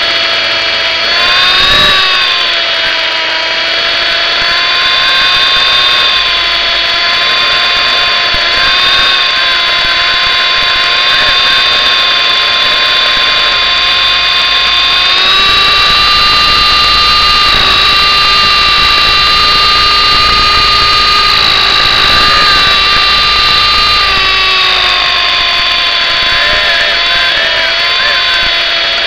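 MJX F45 RC helicopter in flight, heard close up: a steady, loud whine of several tones from its electric motor, gears and rotor. The pitch rises about halfway through and drops back a few seconds before the end.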